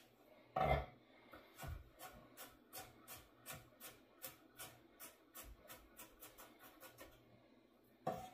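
Kitchen knife chopping elephant garlic on a wooden cutting board: light, even strokes about three a second, with a single louder knock about half a second in.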